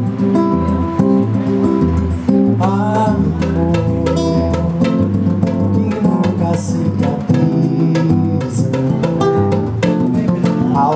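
Instrumental music: guitar with a bass line and percussion, playing a steady groove.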